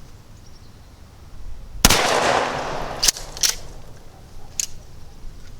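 A single shot from a Remington TAC-14 12-gauge pump shotgun firing a buffered 6-pellet 00 buckshot mini shell, with a sharp report that rings out for about a second. It is followed by three sharp clicks.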